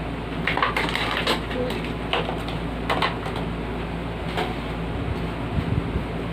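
Clicks and knocks of a box fan's plastic parts being handled during disassembly, a quick cluster about a second in and a few single ones after, over a steady low hum.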